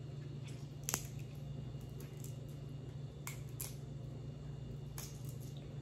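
Crab leg shell cracking and snapping between the fingers as the meat is picked out: scattered sharp clicks and crackles, the loudest about a second in, over a steady low hum.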